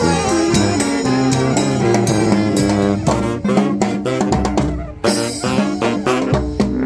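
Street brass band playing: horns, including saxophone, over a drum kit, with a brief break about five seconds in.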